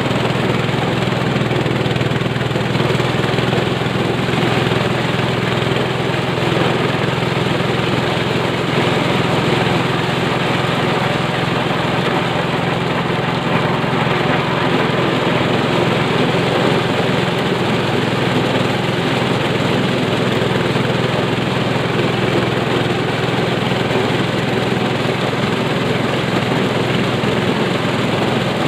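Engine-driven corn sheller running steadily, a constant engine hum under a dense, even mechanical noise as cobs are shelled.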